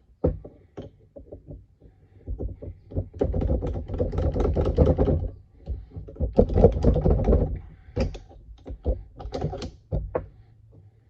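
Metal parts of an antique Armstrong pipe vise rattling and knocking as a stuck bolt is worked back and forth to free it. The rapid clatter comes in two spells of a few seconds each, with scattered single knocks in between.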